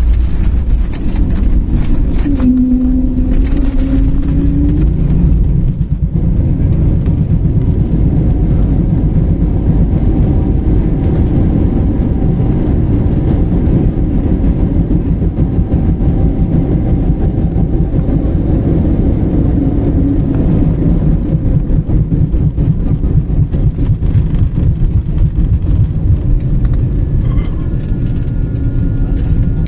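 Airliner cabin noise during landing: a loud, steady low rumble of the engines and airframe, with a brief humming tone about two seconds in.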